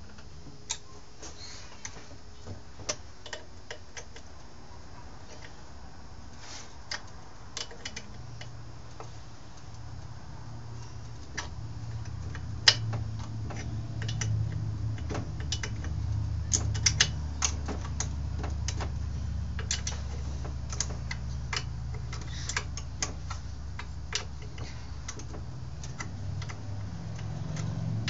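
Irregular light clicks and taps of hand tools and small metal parts as a Stihl S10 chainsaw is taken apart by hand. A low hum comes up about eight seconds in and stays under the clicks.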